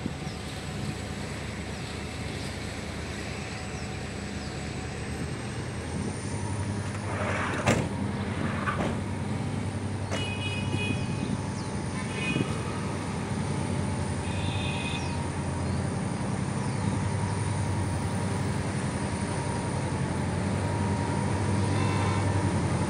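Distant diesel locomotives of a triple-headed ore train approaching, a low steady engine rumble growing slowly louder. A sharp knock comes about eight seconds in, and a few short high-pitched sounds come between ten and fifteen seconds.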